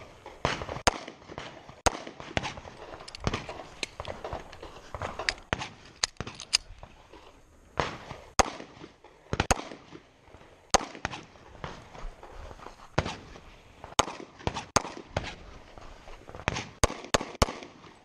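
Pistol shots fired at an irregular pace through a stage, some in quick strings of two to four, with fainter pops and clicks in between.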